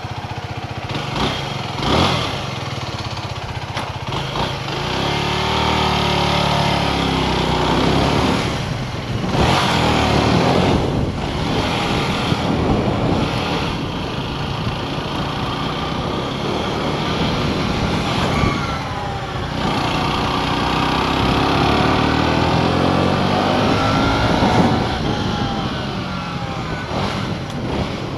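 Aprilia RS4 125's single-cylinder four-stroke engine ticking over, then pulling away about five seconds in and revving up and dropping back several times through the gears as the bike rides off.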